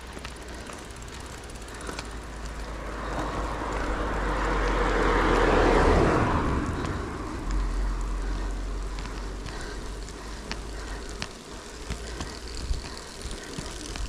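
A car passing close by on the road, its tyre and engine noise swelling over a few seconds to a peak about six seconds in and then fading away, over a steady low rumble of wind on the microphone while cycling.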